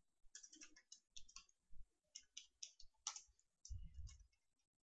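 Faint keystrokes on a computer keyboard, a quick irregular run of separate clicks, with a low dull thump a little under four seconds in.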